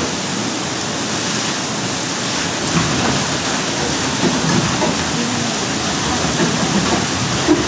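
Sawmill running, a steady rushing noise with a few faint low knocks, as the saw carriage feeds a log into the blade.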